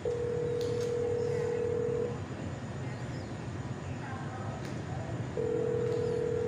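Ringback tone from a smartphone on speaker while an outgoing call waits to be answered: a steady single-pitch beep about two seconds long, then a second one starting about five seconds in.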